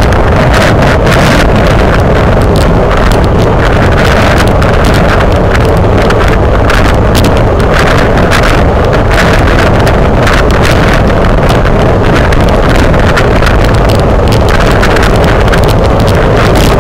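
Heavy wind buffeting on the microphone of a camera mounted on a racing road bike at speed: a loud, steady rumble that flutters constantly.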